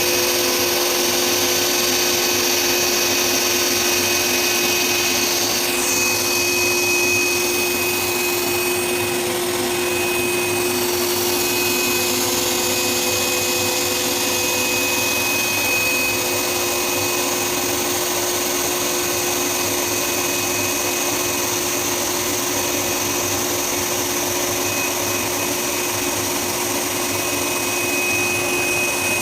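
Garment pattern-cutting machine running, a steady mechanical whir with a constant hum and a thin high whine.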